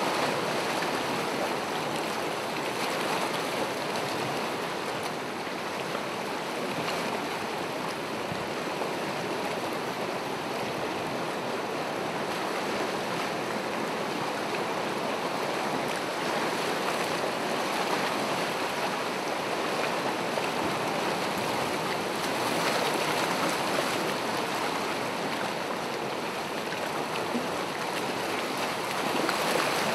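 Gentle ocean waves washing ashore: a steady hiss of surf that swells and eases slightly every few seconds.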